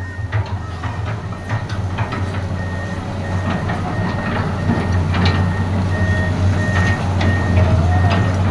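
Excavator's diesel engine running steadily, with its travel alarm starting to beep about two and a half seconds in and repeating evenly, over scattered metallic clanks.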